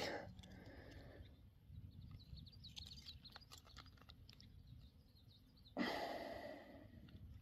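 A man's sharp, breathy sigh about six seconds in, fading over a second or so, with a shorter exhale at the start, among faint clicks of a lure and steel leader being worked loose from a small pike's mouth.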